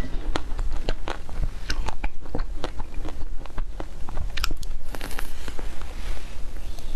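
Close-miked crunching and chewing of a frozen ice cream bar with a hard coated shell: sharp crackly crunches as the shell breaks between the teeth, with a fresh bite into the bar late on.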